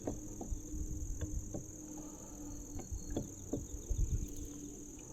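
Steady high-pitched insect chorus, like crickets, with a few scattered light clicks and knocks over it.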